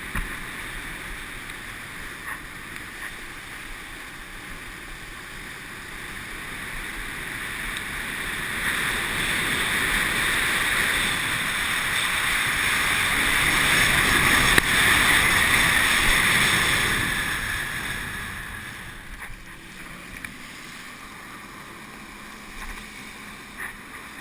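Water ski hissing across the water with spray and wind rushing past a helmet-mounted camera, swelling louder for several seconds past the middle and then easing off.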